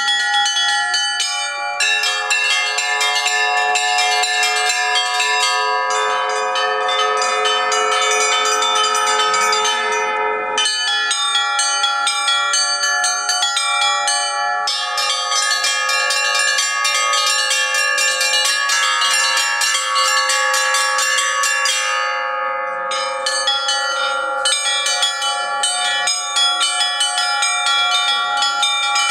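Russian church bells rung together: small bells chiming in quick, dense patterns over larger, lower bells that keep ringing. The pattern briefly changes about ten seconds in and again a little past twenty seconds.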